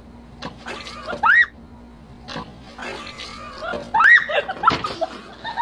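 A girl laughs with a mouthful of water, trying to hold it in, and spits it out. The stifled laughter rises into two high squeals, about a second in and again around four seconds, and there is wet spluttering between them.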